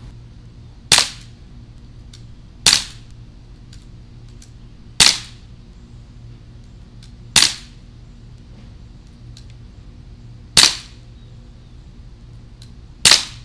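Daisy Powerline 5501 CO2 blowback BB pistol fired six times, a sharp crack every two to three seconds, each with a short ring after it.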